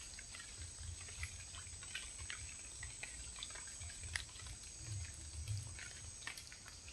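Faint outdoor animal ambience: a steady high-pitched drone throughout, with scattered small ticks and drips and a low rumble underneath.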